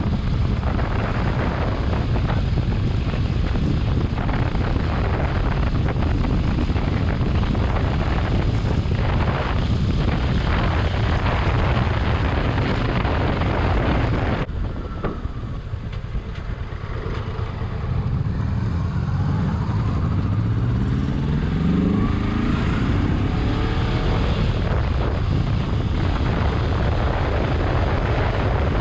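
Kawasaki Ninja 650 parallel-twin motorcycle at highway speed through a helmet-mounted GoPro Hero 7 Black's built-in microphone, with heavy wind noise on the mic over the engine. About halfway through, the wind noise suddenly drops and the engine note is heard rising in pitch as the bike accelerates.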